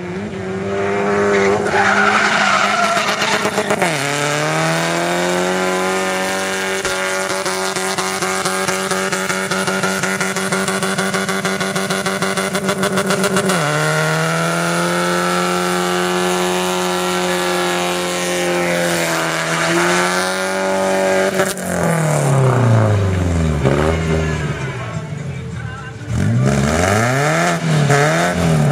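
A pickup truck's engine held at high, steady revs while the truck drifts on sand, with a sudden brief dip in pitch twice. In the last several seconds it is revved hard up and down again and again.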